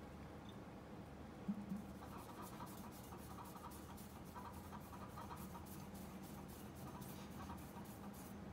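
Fingertips rubbing diamond powder into the scored surface of a copper faceting lap: faint, irregular scratchy strokes over a low steady hum.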